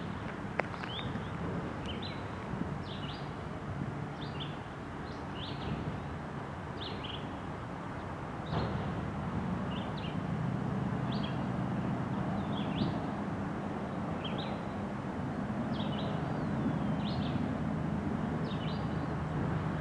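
Norfolk Southern trash train's waste-container cars rolling past on the rails, a steady low rumble that grows louder about eight and a half seconds in. A bird chirps over it again and again, one short call about every second.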